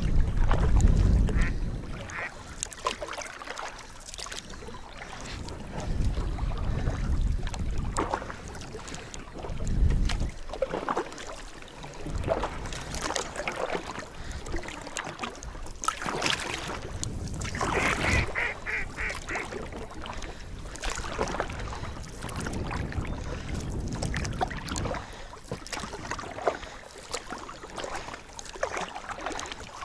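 A duck quacking a quick run of about six calls, just past halfway through, over the low rumble of wind and water around an inflatable boat, with scattered knocks from the boat.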